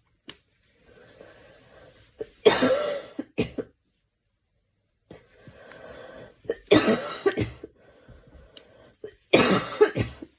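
A girl coughing in three loud bouts about four seconds apart, with quieter breathing between them.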